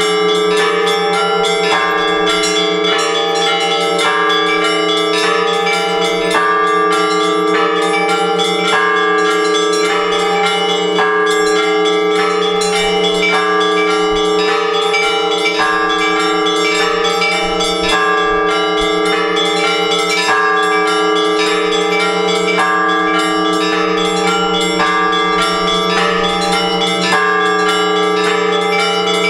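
Orthodox church bells rung together in a peal calling to the all-night vigil. Quick strokes of smaller bells repeat in a pattern about every two seconds over the steady hum of the larger bells.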